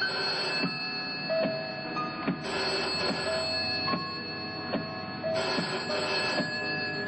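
Rotary-dial telephone bell ringing in bursts about a second long, roughly every three seconds. Between the rings a sparse film score plays single notes over soft ticks.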